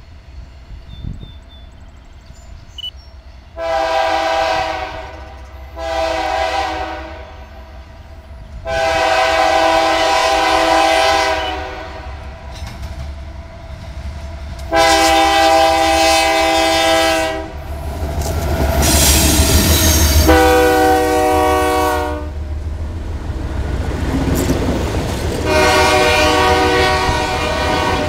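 Freight train locomotive sounding its multi-chime air horn in six separate blasts of different lengths as it approaches and passes; one blast in the second half sounds lower as the lead unit goes by. The rumble of the diesel locomotives and the clatter of their wheels on the rails build up through the second half.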